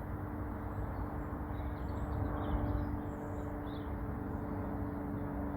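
Outdoor ambience: a steady low rumble with a faint steady hum underneath, and a few faint bird chirps about two seconds in.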